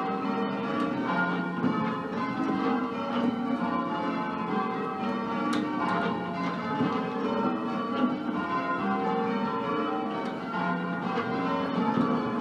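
A ring of ten church bells in F, with a 13 cwt tenor, rung in changes: one bell strikes after another in a steady rhythm and the tones overlap. The ring is a mix of Mears and Stainbank, Gillett and Johnston and Whitechapel bells.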